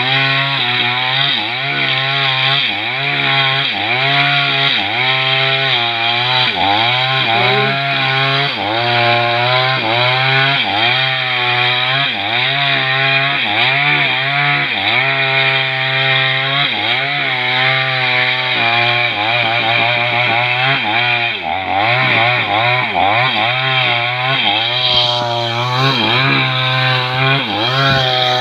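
Chainsaw cutting a fallen johar (Siamese cassia) log. The engine runs without a break under load, its pitch dipping and recovering about once a second as the chain bites into the wood.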